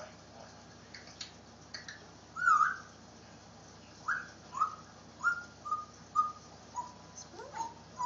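African grey parrot whistling: one loud warbling note about two and a half seconds in, then a run of short whistles, about two a second, each sliding down in pitch and getting lower toward the end, with one rising whistle near the end.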